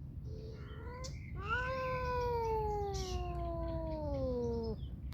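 A cat meowing: a short call about half a second in, then one long drawn-out meow of about three seconds that slides steadily down in pitch.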